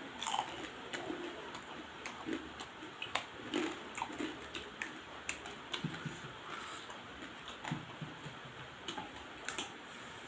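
Close-up eating sounds of a person eating spicy crab by hand: chewing and sucking, with irregular small clicks and smacks from mouth and crab shell.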